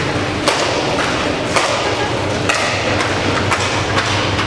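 Sharp clacks of inline hockey sticks striking the puck and the tiled rink floor during play, about six at uneven intervals, over a steady low hum.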